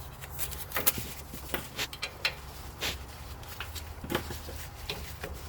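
Irregular clicks and knocks of hands and a tool working a brake caliper while a caliper bolt is being started, about eight sharp strokes over a low steady hum.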